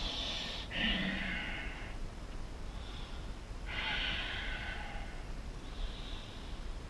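A man breathing slowly and audibly while holding a stretch. There are two long breaths about a second and four seconds in, with shorter, fainter ones at the very start and near the end.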